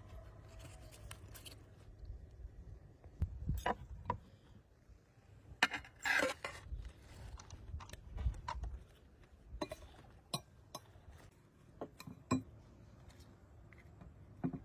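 Dishes and utensils being handled: a series of separate clinks and knocks at irregular intervals, with a short louder scraping, rattling stretch about six seconds in.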